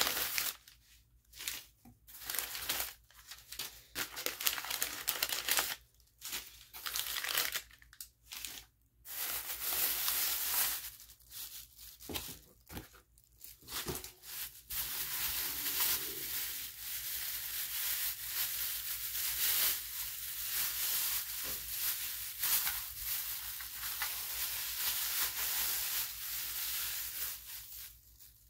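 Packaging being torn open and crumpled by hand. Short separate bursts of tearing and rustling for the first half, then almost unbroken crinkling and rustling until near the end.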